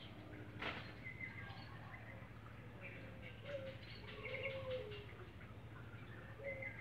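Doves cooing in short wavering notes, mixed with higher chirps, and a single sharp tap a little under a second in.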